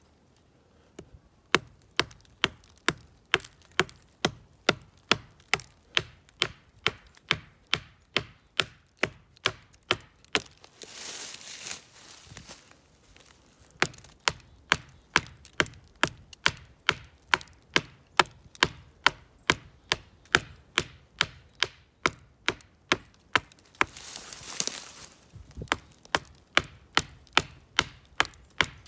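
Stone axe, its head hafted into a wooden handle with pine pitch, chopping into the trunk of a young black walnut sapling: a steady run of sharp knocks, about two to three a second. The chopping pauses twice for a brief rustling hiss.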